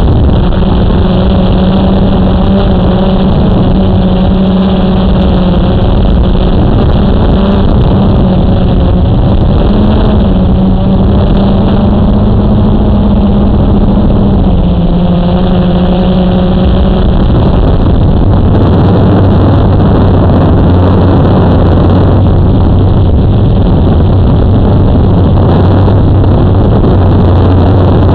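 Blade 350 QX quadcopter's four brushless motors and propellers running in flight, a loud steady buzzing hum heard through the onboard camera's microphone. The hum wavers slightly in pitch, then drops to a lower tone about two-thirds of the way through as the motor speeds change.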